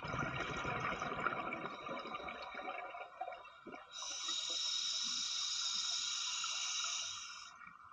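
A scuba diver breathing through a regulator underwater. For about three seconds exhaled bubbles rumble and gurgle, then a steady hiss of an inhalation through the regulator runs for about three and a half seconds and cuts off sharply.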